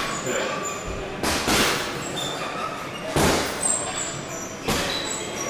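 Three short, noisy breaths about a second and a half apart from a man exerting himself through incline dumbbell press reps, over gym room noise.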